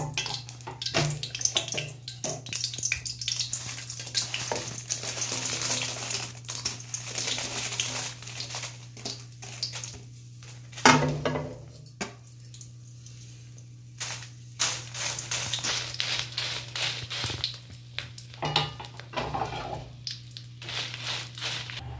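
Dried Byadgi red chillies being tipped into a hot oiled aluminium kadai and stirred, with clicks, scrapes and rattling against the metal and a loud knock about eleven seconds in. A steady low hum runs underneath.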